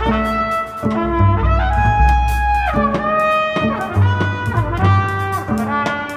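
Instrumental background music: a melody of held notes that slide between pitches, over a steady bass line and a drum beat.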